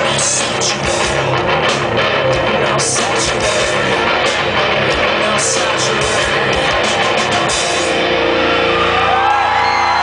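Rock band playing live: distorted electric guitar, drums with cymbal crashes, and sung vocals. About eight seconds in the drums stop and the guitar rings on as the song ends, while the crowd starts whooping and cheering.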